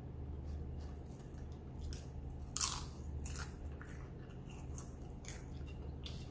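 Close-up crunchy bites and chewing of a person eating: a run of sharp crunches, the loudest about two and a half seconds in. A steady low hum runs underneath.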